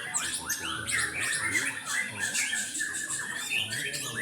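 A murai, a Copsychus songbird such as the white-rumped shama, giving a continuous harsh chatter of quick, short downward-sweeping notes.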